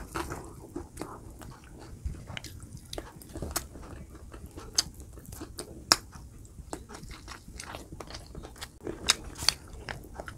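Close-up eating sounds: a person chewing and biting food, with irregular sharp crunchy clicks and wet mouth noises, a few louder clicks standing out.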